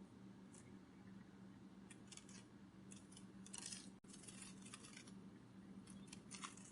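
Butterfly wing-flutter sound effect: faint, short crisp flutter bursts in irregular clusters, over a steady low hum. A brief dropout about four seconds in.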